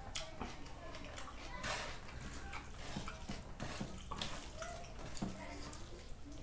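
A bare hand mashing and mixing curd rice on a steel plate, making irregular wet squelches and small clicks.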